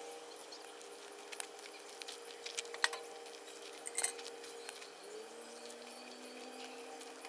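Scattered light clicks and clinks, the sharpest about three and four seconds in, over a faint steady hum.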